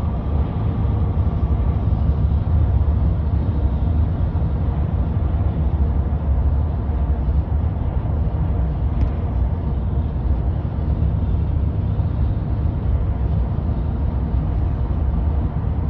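Steady rumble of road and engine noise heard from inside a moving car's cabin.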